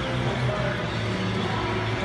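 Background music playing over the gym's sound system.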